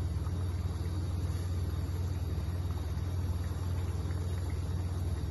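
Steady low rumble and hum of a working kitchen hob: gas burners lit under a pan of water at a rolling boil and a simmering sauce pan, with no distinct clicks or knocks.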